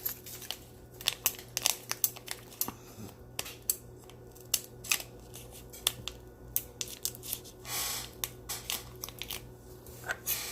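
Scissors snipping at a small plastic packet to cut it open: a run of short, sharp clicks and crinkles, with a longer rustle about eight seconds in.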